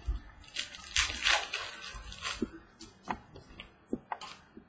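Prizm football trading cards being handled and flipped through by hand. A rustling slide of card against card comes about a second in, followed by several light clicks as single cards are peeled off and tapped down.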